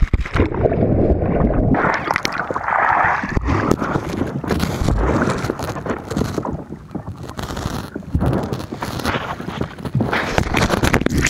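Water sloshing and splashing, with wind noise and bumps on the microphone.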